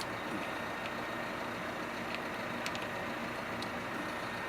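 Tractor engine idling steadily, with a few faint sharp clicks and ticks over it.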